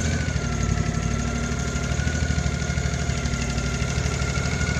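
Air-cooled 18 HP Briggs & Stratton Vanguard V-twin on a riding lawn mower running steadily at idle, an even low engine note with a thin steady whine above it.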